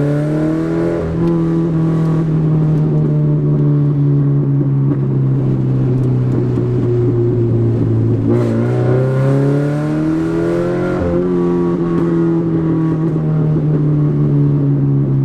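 Subaru BRZ's 2.0-litre flat-four engine running loud through a catless front pipe while driving: the note climbs at first, holds a steady drone, dips sharply about eight seconds in, then climbs again and holds.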